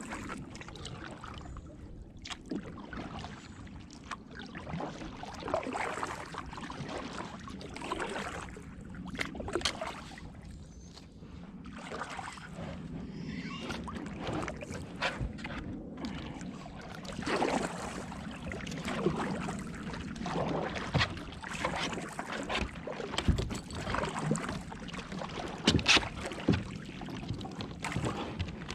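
Kayak paddle dipping and splashing in the water, stroke after stroke at an uneven pace, with water sloshing against the hull.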